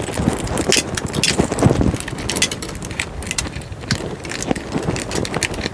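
Hands working cables and plastic parts loose from a wall-mounted TV bracket: an irregular run of rustles, scrapes and small clicks.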